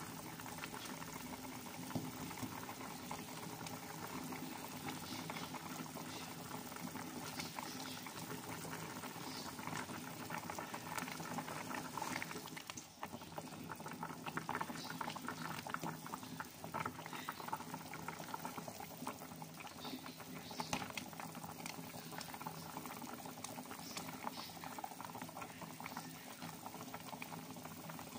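Chicken broth boiling hard in a pot around a whole chicken on high heat: a steady bubbling crackle, with a few light clicks.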